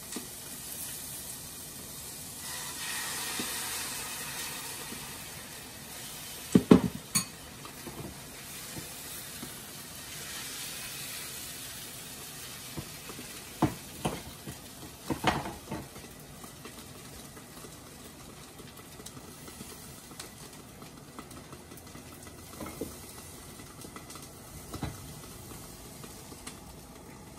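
Bánh xèo rice-flour batter sizzling in hot oiled frying pans; the sizzle swells about two seconds in. Sharp clinks and clatters of pans, lids and a ladle break in a few times, loudest about seven seconds in.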